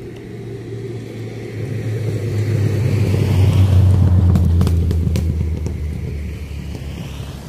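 A motor vehicle passing close by on the road: a low engine rumble with tyre hiss that swells to its loudest about four seconds in, then fades away. A few sharp clicks sound near the loudest point.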